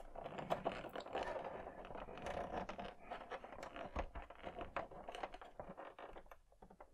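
Hard plastic parts of a toy spaceship scraping and clicking softly as a clear plastic cockpit canopy is worked into its seat by hand, with many small irregular ticks over a faint rubbing.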